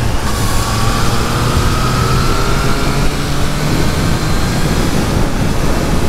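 Triumph Trident 660's three-cylinder engine pulling hard under way, its note rising in pitch for the first three seconds, with heavy wind rush over the microphone.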